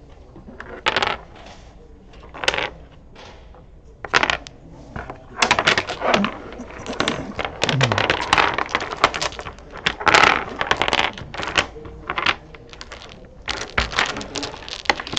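Dominoes on a wooden table. A few single clacks about one, two and a half and four seconds in as tiles are set down, then dense clattering as the tiles are gathered and shuffled around the tabletop by hand.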